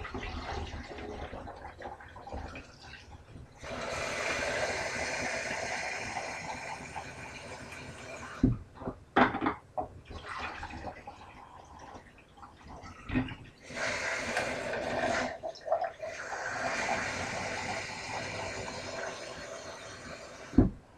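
Lemonade poured from a clear measuring jug into a container over a kitchen sink, in three long pours. Between the pours come a few sharp knocks of the jug and container.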